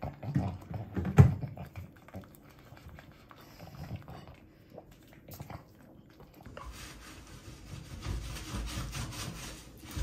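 A pug eating from a ceramic plate: irregular wet licking and chewing with snuffling, and a louder knock about a second in.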